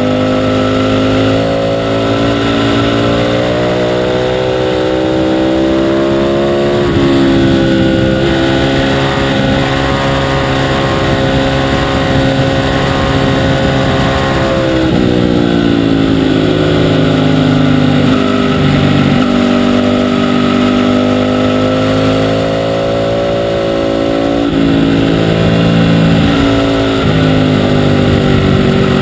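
Ducati 848's L-twin engine at racing speed. The revs climb steadily, drop sharply about seven seconds in, hold high, then fall away around fifteen seconds and climb back up in stages toward the end.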